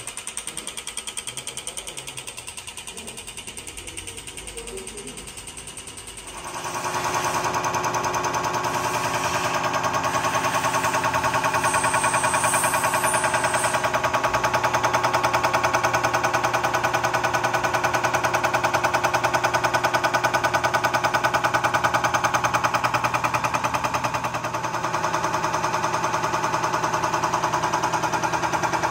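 Cummins N14/M11 electronic unit injector being pulsed electrically on a test bench, its solenoid clicking rapidly like a machine gun. About six seconds in it gets louder, with a steady machine hum from the bench under the rapid clicking.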